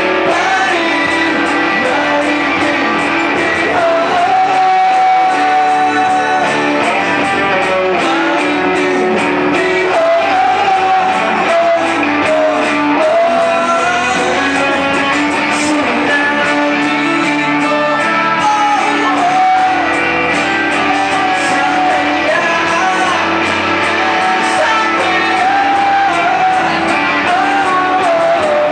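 Live acoustic band performance: a male lead vocal sings the melody over strummed acoustic guitar, with the sound of a large room.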